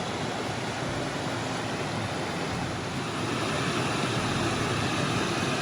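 Steady rush of flowing creek water, a little louder from about three seconds in.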